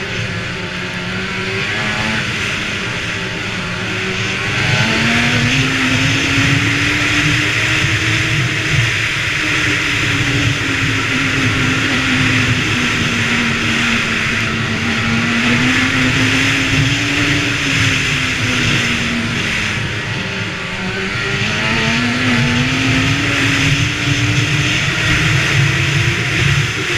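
Snowmobile engine running at speed, its pitch rising and falling several times as the throttle opens and eases, over a steady hiss. It revs up about five seconds in, eases off around twenty seconds in, then picks up again.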